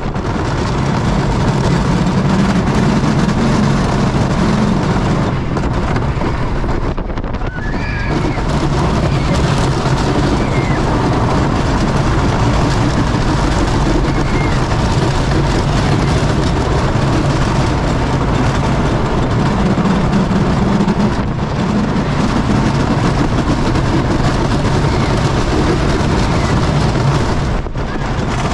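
Wooden roller coaster train running at speed over its wooden track: a loud, steady rumble with wind rushing over the microphone, easing briefly twice.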